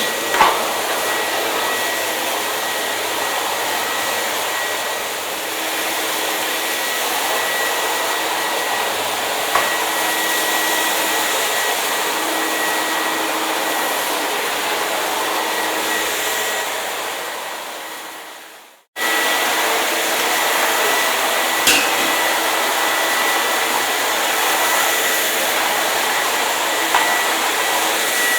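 Hair dryer running steadily: an even rushing hiss with a thin high whine. Near the end it fades out to silence and cuts straight back in about a second later.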